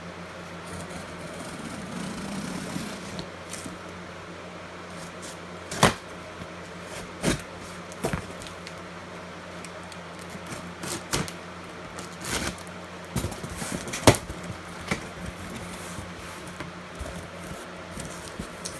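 A cardboard box being opened and unpacked by hand: irregular sharp knocks and clicks of cardboard and packing, about ten of them spread through, with softer rustling between, over a steady low hum.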